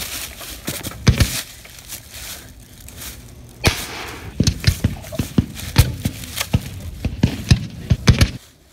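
Footsteps crunching through dry fallen leaves: a few sharp crunches, then a quick, uneven run of them from about four and a half seconds in.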